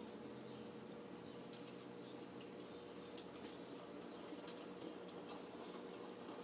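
Faint outdoor ambience: a bird gives short, high chirps again and again over a steady low background rumble, with a few faint ticks in the middle.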